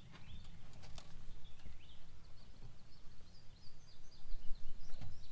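Steady low outdoor rumble on the microphone that swells louder near the end, with a sharp click about a second in and faint high bird chirps in the middle.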